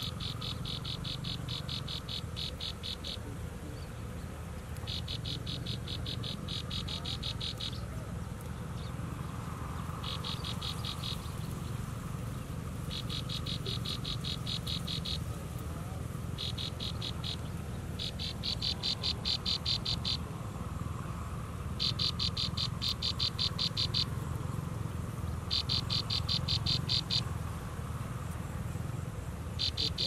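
An insect trilling in repeated high, finely pulsed bursts of one to three seconds with short pauses between, over a steady low rumble.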